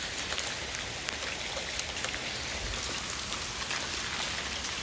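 Hail mixed with rain falling steadily: a dense hiss with many sharp little ticks of stones striking.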